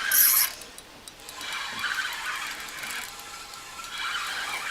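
Spinning fishing reel being cranked: a short loud burst of whirring gear noise at the start, then fainter, uneven reel noise.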